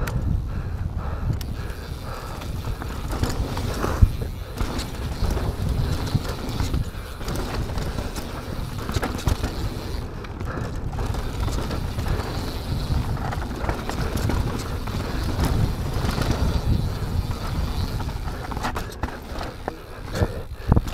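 Mountain bike rolling down a dirt trail: steady tyre noise and the bike rattling over the bumps, with a sharp knock about four seconds in and another near the end.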